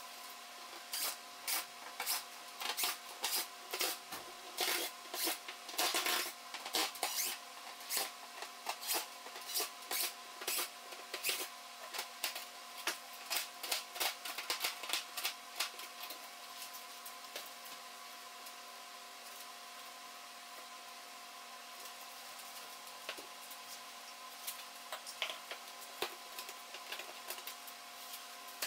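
Plastic window trim ring being pried and pulled off an RV entry door by hand, giving irregular sharp clicks and cracks several times a second for about fifteen seconds, then only a few scattered clicks.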